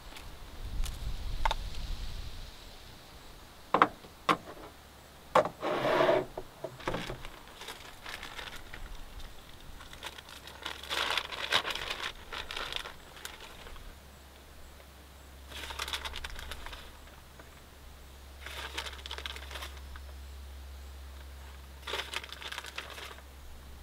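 Plastic food packaging crinkling in several short bursts as it is handled and opened, with a few sharp knocks and clicks of items set down on a wooden tailgate platform.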